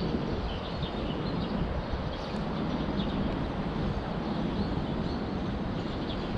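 Steady outdoor background noise, a low rumble and hiss, with faint short bird chirps now and then.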